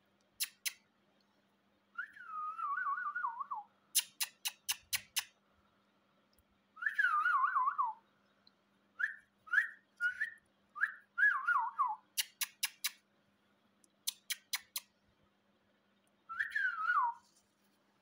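Indian ringneck parakeet whistling: several wavering phrases that slide down in pitch, three short rising chirps in the middle, and quick runs of sharp clicks between them.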